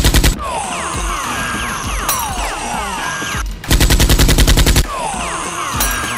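Two bursts of rapid automatic gunfire, a film-style machine-gun sound effect, each about a second long: one at the start and one near the middle, over background music.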